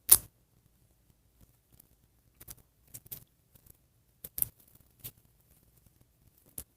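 Small plastic doll hair pieces being handled and fitted onto a doll's head: scattered light clicks and taps, with one sharper click right at the start.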